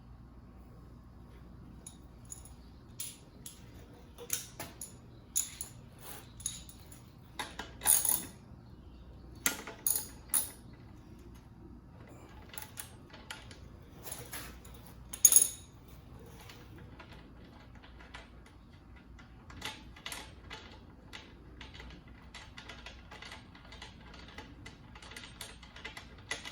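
Metal hand tools and sockets clinking and clicking while a motorcycle's parts are being unbolted, with irregular sharp clinks and a few louder clanks, the loudest about 15 seconds in.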